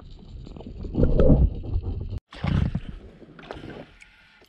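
Muffled underwater rumble and sloshing picked up by a submerged camera beside a hooked pike, swelling about a second in. It cuts off suddenly a little after two seconds, followed by a brief bump and soft water sounds at the side of an inflatable boat.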